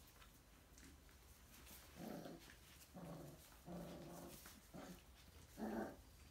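Five-week-old English Teddy Bear Goldendoodle puppies giving short play vocalizations while tussling over toys, about five brief sounds in a row starting a couple of seconds in.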